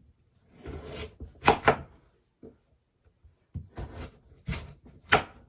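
Knife cutting through daikon radish onto a cutting board: a short scrape, then a handful of separate cuts, two in quick succession and four more spaced through the rest.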